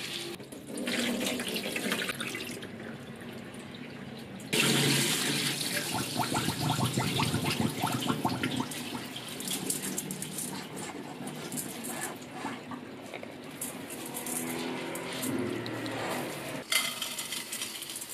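Water sloshing as hands rub and wash soaked glutinous rice in a pot, then water running in a kitchen sink as the wet rice is tipped into a metal colander. The water noise gets suddenly louder about four and a half seconds in.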